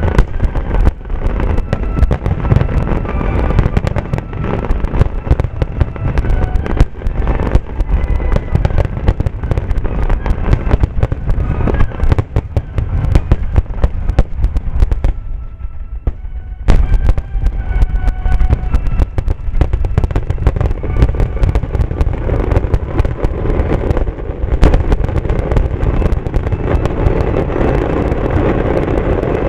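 Fireworks finale: a dense barrage of aerial shell bursts and launches, booms and crackling overlapping without pause. There is a brief lull about fifteen seconds in, broken by a sharp loud burst.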